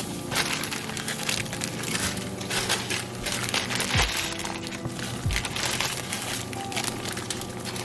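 Background music over crackling and crinkling from dry instant ramen noodles and their packaging being handled and put into the pot.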